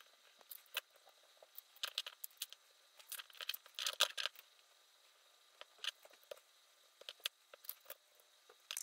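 Scattered small clicks and scrapes of steel M3 screws and a hex key against a 3D-printed plastic extruder body as the screws are set in and turned by hand, with the busiest, loudest run of clicks about three to four seconds in.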